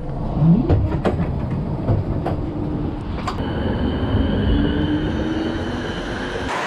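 Electric coastal tram moving along the platform: low rail and wheel rumble with scattered clanks. A steady electric whine comes in about halfway through.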